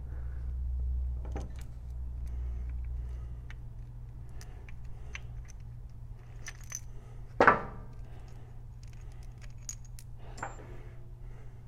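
Small steel engine parts clinking and tapping as a cam drive chain and cam plate parts are handled, with one loud ringing metal clink about seven and a half seconds in and a smaller one near the end, over a steady low hum.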